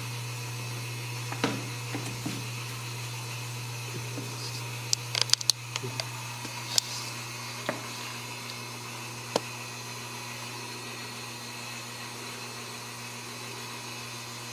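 A steady low hum, with a few sharp clicks and taps scattered through the first half and a quick cluster of them about five seconds in.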